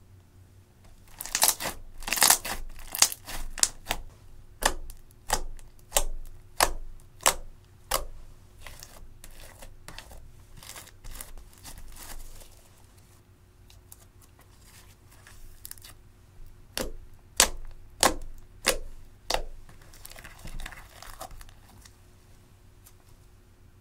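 Hands stretching, folding and squeezing thick slime, giving a run of sharp pops and clicks, one or two a second, then a stretch of softer sticky crackling, and a second run of pops before a soft crinkle near the end.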